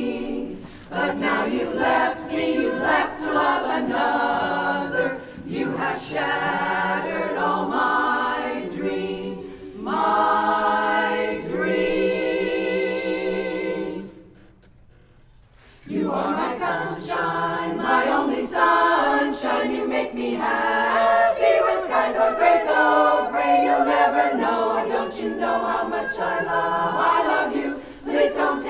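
Women's barbershop chorus singing four-part harmony a cappella. About ten seconds in the voices hold a long chord with vibrato, then they break off for about two seconds and start singing again.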